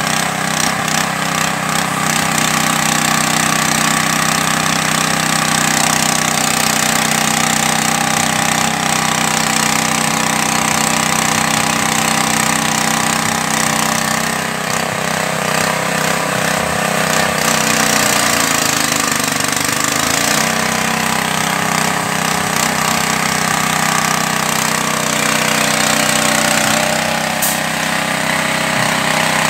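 Small engine running steadily, driving a mini fish-feed pellet extruder as it presses out floating pellets. Its pitch dips and recovers briefly about 19 seconds in.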